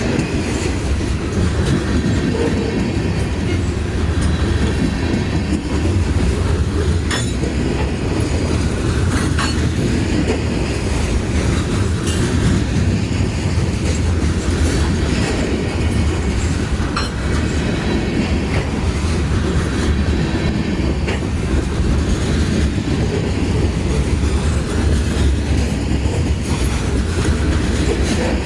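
Freight train rolling past: a steady rumble of wheels on rail, with scattered sharp clicks as the wheels pass over rail joints.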